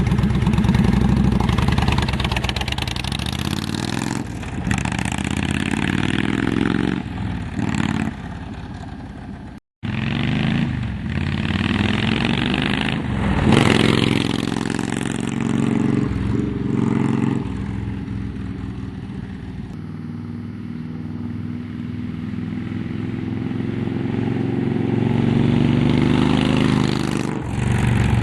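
Honda VTX 1300 V-twin running through Cobra Speedster Longs aftermarket exhaust pipes. Its pitch rises and falls several times as the throttle is blipped, with a momentary break in the sound about ten seconds in.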